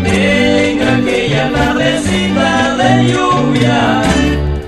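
Cumbia sabinera song: voices singing a melody over a steady bass line, with a brief dip just before the end.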